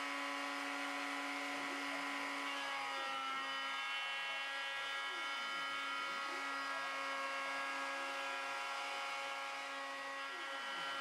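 Router on a homemade CNC machine running steadily with a high whine while cutting the outline of a wooden guitar body, with lower tones sweeping up and down in pitch as the machine moves.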